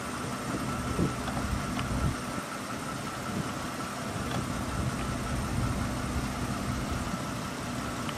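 Embraer ERJ regional jet's twin rear-mounted turbofans running at taxi power: a steady high whine over a low rumble.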